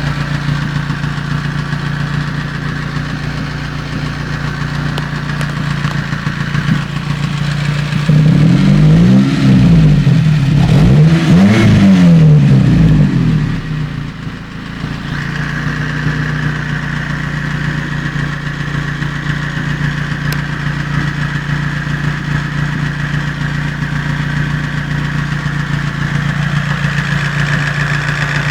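Toyota 5A four-cylinder petrol engine idling, with valve-train knocking that the owner takes for valve tap. It is revved twice, about 8 and 11 seconds in, then drops back to a steady idle.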